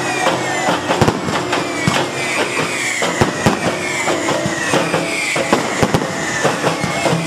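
Aerial fireworks going off in a rapid series of bangs and crackles, with high whistles sliding slowly down in pitch.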